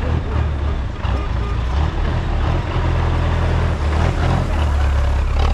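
Old Toyota Land Cruiser jeep's engine running close by, a steady low drone that swells and eases a few times, with a rushing noise over it.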